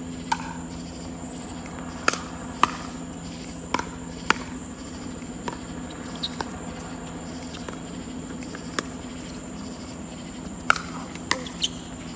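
Pickleball rally: about a dozen sharp pops, irregularly spaced, of paddles striking a hollow plastic pickleball and the ball bouncing on the hard court. A steady low hum and a steady high whine run underneath.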